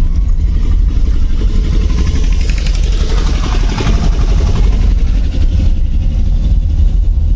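Car running along a rough village road, heard from inside the cabin: a steady low rumble of engine and road. A louder, rougher stretch of tyre noise comes from about two to four seconds in.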